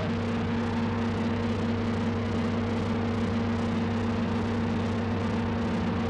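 Electronic sound-design drone: a steady rushing hiss with low sustained tones underneath.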